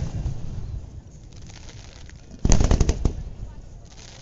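Aerial fireworks shells bursting: a bang at the start fades into a low rumble, then about two and a half seconds in comes a rapid cluster of sharp cracks, with rumble trailing off after.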